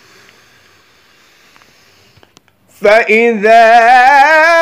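A man chanting Quranic recitation in a melodic, ornamented style, starting about three seconds in. His voice wavers up and down on the opening syllables, then holds a long steady note. Before it there is only a faint hiss.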